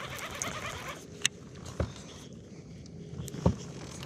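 Three short sharp clicks or knocks, the last one near the end, over faint background noise, with a soft rustle in the first second.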